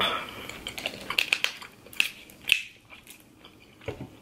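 Plastic water bottle being handled after a drink: crinkling and a run of sharp plastic clicks from the bottle and its cap, then a single knock near the end as it is set down on the table.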